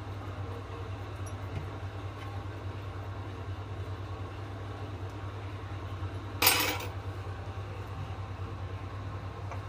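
Kitchenware clattering once, loud and short with a brief ring, about six and a half seconds in, over a steady low hum.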